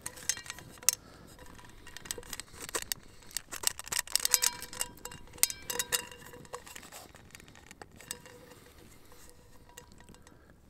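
Metal camping pot clinking as it is handled: a string of sharp knocks, each ringing briefly, busiest in the middle, over the crackle of a campfire.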